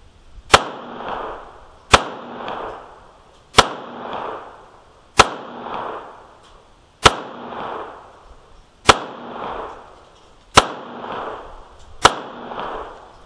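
Smith & Wesson M&P22 pistol firing .22 LR rounds in slow aimed fire: eight sharp cracks, roughly one every one and a half to two seconds, each trailed by a brief echo.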